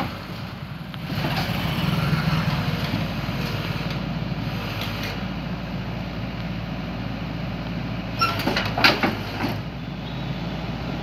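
Excavator's diesel engine running steadily as the machine travels slowly. A few sharp knocks come about eight to nine seconds in.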